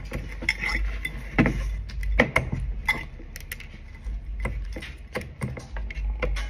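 Metal fork stirring instant ramen noodles and crushed chips in a glass bowl: irregular clinks and taps of the fork against the glass with soft scraping.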